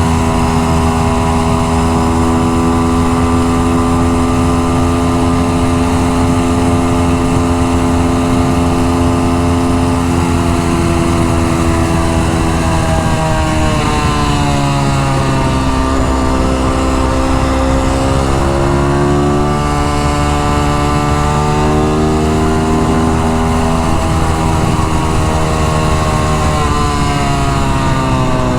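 Dax minibike's single-cylinder four-stroke engine running under way at steady revs. Its pitch falls about halfway through as the bike slows, rises again a few seconds later, and drops once more near the end. The exhaust is leaking where it has worked loose.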